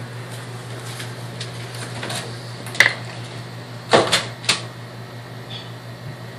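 A few sharp clicks and knocks, one a little before three seconds in and three in quick succession about four seconds in, over a steady low hum.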